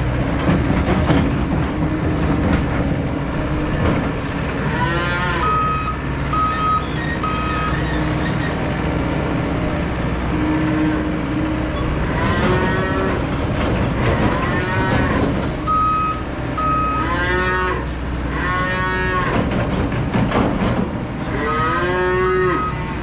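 Calves bawling, about six loud calls that rise and fall in pitch, over the steady running of a skid loader's engine. Three short runs of even beeps from the loader's backup alarm sound in between.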